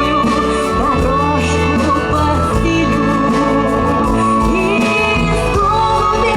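Music: a melody over a steady beat.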